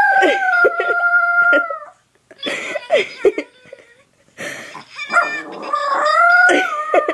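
Small shaggy dog making gurgling howls. The first long call is held for about two seconds, a few shorter sounds follow, then a second long call rises and falls near the end.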